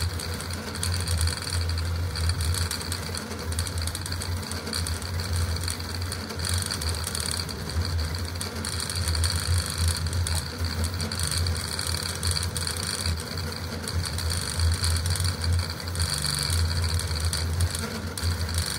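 Custom CoreXY 3D printer printing at high speed (600 mm/s, 80k acceleration), its stepper motors and belt-driven print head making a continuous busy mechanical buzz with a steady high whine over a low hum, fluttering rapidly as the head changes direction.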